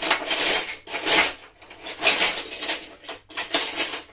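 Cutlery scraping and clattering against dishes in a run of short strokes, about two a second.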